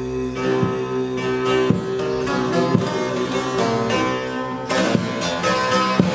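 Long-necked divan saz (bağlama) with a carved mulberry bowl, played with a plectrum: an instrumental passage of rhythmic strokes over ringing open drone strings. The strumming gets busier and denser near the end.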